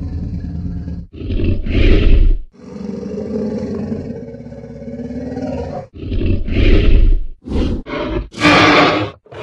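Movie Tyrannosaurus rex sound effects: a low rumbling growl, a roar about a second in, a long low growl, another roar about six seconds in, two short snarls, and a loud, higher roar near the end.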